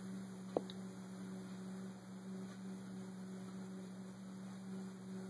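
Steady low electrical hum, with a single sharp click about half a second in: a key tap on the iPad's on-screen keyboard as the search is entered.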